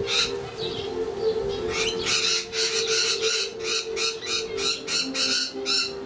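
A bird giving a rapid series of short, harsh squawking calls, about three a second, fainter for the first second or so, over a steady low hum.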